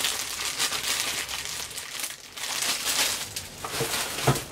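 Clear plastic bags wrapped around action figures crinkling irregularly as the figures are handled and moved.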